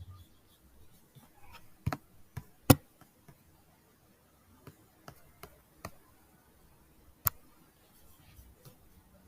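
Scattered single clicks of a computer mouse, with the sharpest about two seconds in, near three seconds and past seven seconds, over quiet room tone.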